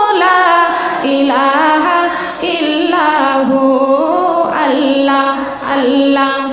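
A woman singing an unaccompanied Bengali devotional zikr chant, drawing out long, wavering notes in slow phrases.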